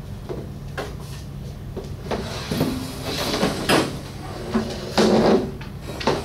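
A series of knocks and clunks from paper cups being set down and school furniture being handled. The loudest bumps come about two, three and a half and five seconds in, over a steady low hum.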